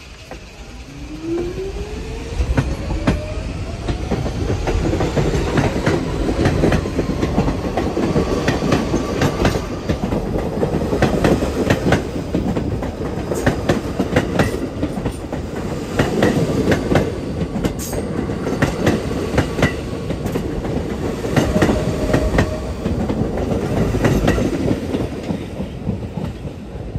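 R46 subway train pulling out and running close past, its traction motors whining steadily higher in pitch as it picks up speed. The wheels clack over the rail joints in a dense run of clicks with a heavy rumble.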